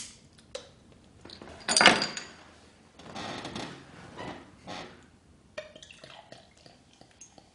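A bottle opener prying the crown cap off a glass beer bottle, with a loud, short release about two seconds in, then clinks as the glass is handled and beer is poured from the bottle into the glass near the end.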